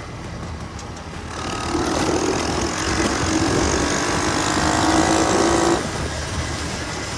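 Mini bike's small engine running. About a second in it grows louder, with a steady high note held for several seconds, which cuts off abruptly near the end.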